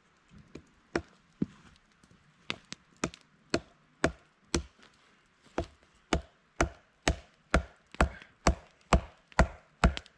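Axe chopping into wood with sharp, hard blows: uneven and spaced at first, then settling from about six seconds in into a steady rhythm of about two blows a second that grows louder.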